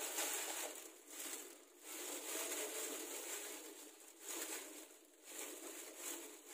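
Plastic food-prep gloves crinkling and rustling as gloved hands squeeze and roll sticky rice around a skewered hotdog, coming in uneven swells with short lulls.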